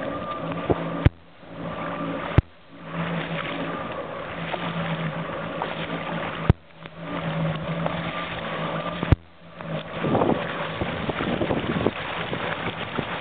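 Motorboat engine running under steady water and wind noise. Four sharp clicks break it, each followed by a brief dropout in the sound. The noise turns rougher and louder for a couple of seconds near the end.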